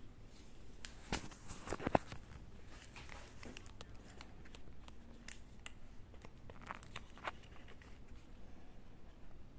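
Faint handling noise from a plastic earbud charging case and its USB cable: scattered small clicks and rustles, with the loudest cluster of clicks about one to two seconds in.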